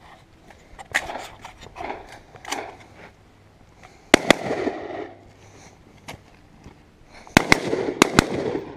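AR-15-style semi-automatic rifle firing: two quick shots about four seconds in, then four more within about a second near the end, each followed by a short echo.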